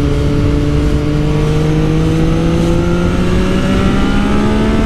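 Yamaha MT-09's inline-three engine breathing through a LeoVince LV One Evo full exhaust system with its dB killer still fitted, pulling under throttle in one gear with the revs climbing slowly and steadily.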